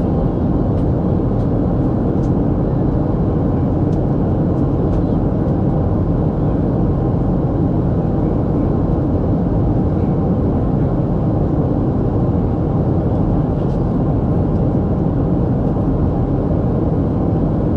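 Steady cabin noise inside a Boeing 737 airliner in flight: engine and airflow noise, loud and even, sitting low and unchanging throughout.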